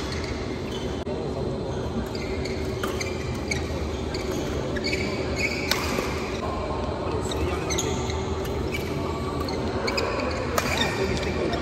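Badminton doubles rally in a large sports hall: sharp racket-on-shuttlecock hits, the strongest about six seconds in and near the end, with short high shoe squeaks on the court mat between them. A steady hum runs underneath.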